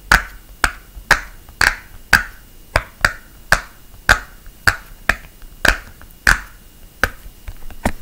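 Bubbles of a rainbow silicone pop-it fidget toy being pressed one by one on its quiet side, giving sharp pops at about two a second.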